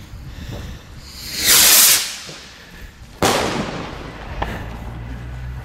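Firework rocket launching with a loud hiss about a second and a half in, then bursting overhead with a sharp bang about three seconds in.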